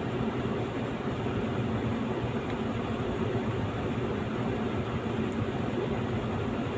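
Car air-conditioning blower fan running steadily, air rushing out of the dashboard vents below the windscreen, with a steady low hum beneath.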